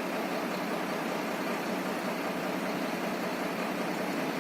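Steady machine running noise, an even hum and hiss with no changes in speed.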